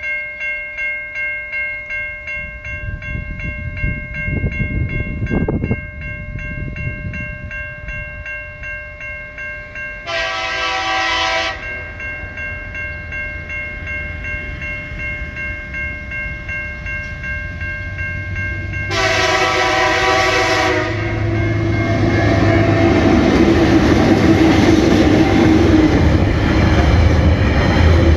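Level crossing bells ring steadily, about two strikes a second. A diesel locomotive horn sounds twice, once for about a second and a half and then for about two seconds. After the second blast the rumble of the approaching train grows, and its empty coal wagons clatter loudly through the crossing near the end. A brief low rumble rises and fades about five seconds in.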